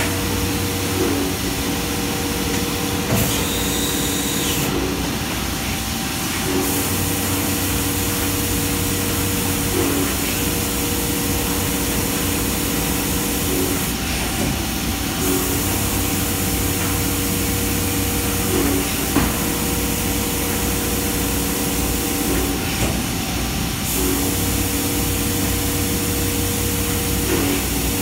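NV5000 vertical machining center drilling bolt holes in bent steel cable-band parts: a steady spindle hum over the hiss of coolant spray. The hum breaks off and resumes every few seconds as the tool moves from one hole to the next.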